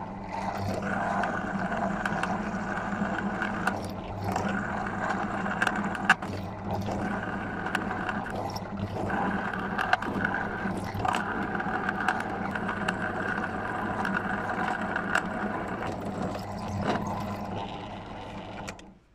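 An electric power tool motor running with a steady whine, its note and level dipping every few seconds as the load changes, with scattered clicks and scrapes. It stops just before the end.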